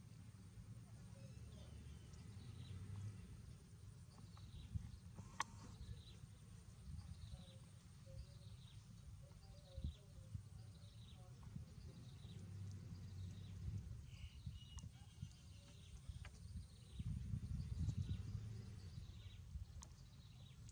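A small animal's short, high chirp, falling in pitch, repeated about every half second to a second over a low steady rumble, with a sharp click about five seconds in.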